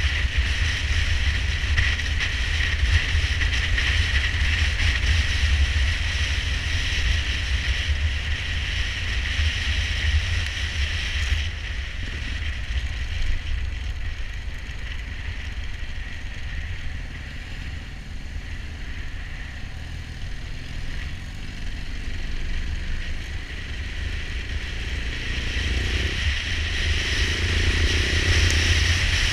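Motorcycle riding along, with heavy wind buffeting on the microphone over the engine and road noise throughout.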